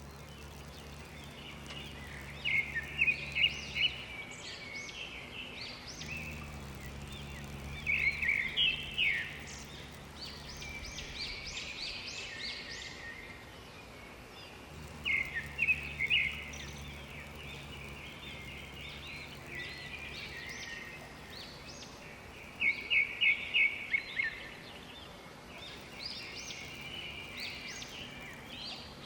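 Songbirds singing short, quick phrases of repeated high notes every few seconds, over steady outdoor background noise. A low steady hum comes and goes underneath.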